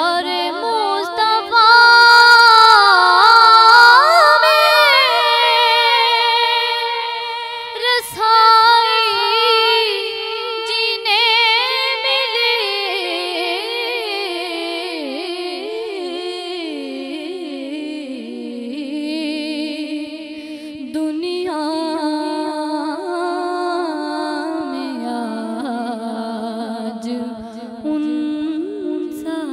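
A young woman singing a naat, a devotional poem in praise of the Prophet, unaccompanied, with long held notes and wavering, ornamented runs.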